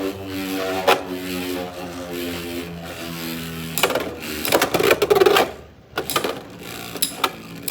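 Beyblade X spinning tops battling in a plastic stadium: a steady whirring hum broken by sharp clacks as they collide, with a louder run of clashing and scraping about four to five seconds in.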